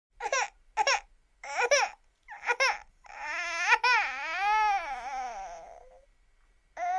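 Baby crying: four short, choppy cries in quick succession, then one long drawn-out wail that rises and falls in pitch, then another short cry near the end.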